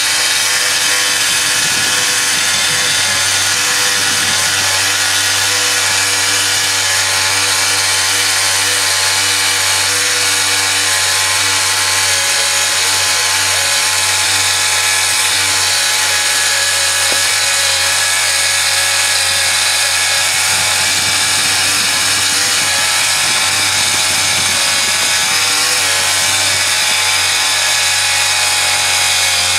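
Capstan winch motor running steadily as it hauls in rope, lifting a bull moose carcass upright on a jet boat's bow.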